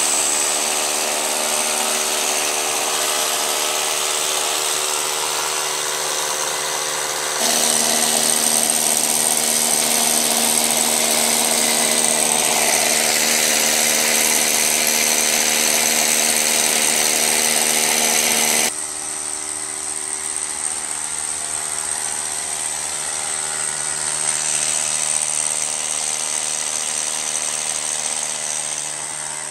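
Hammer drill boring anchor holes into a concrete floor, running continuously with a steady motor drone. It grows louder for a stretch in the middle, then drops back.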